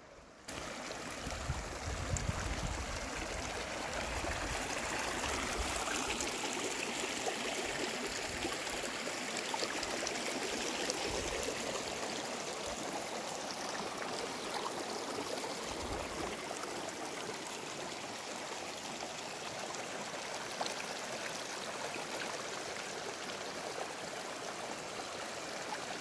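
Small mountain stream of snowmelt water running steadily over stones and through grassy channels, a continuous trickling rush.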